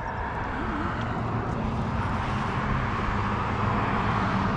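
Engine noise of a motor vehicle on the road alongside, growing steadily louder.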